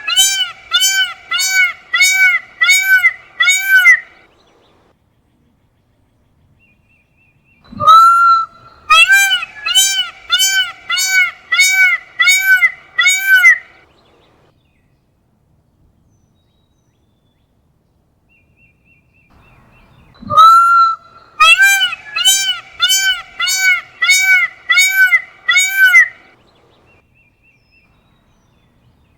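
Peacock calling in three bouts about twelve seconds apart. Each bout is a drawn-out opening call followed by a quick string of about eight short rising-and-falling calls.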